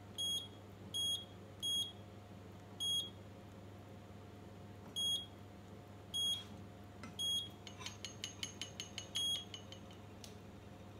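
Induction hob touch controls beeping as the power is set to bring the soup to the boil: a series of short, high beeps at irregular intervals, with a quick run of rapid beeps near the end.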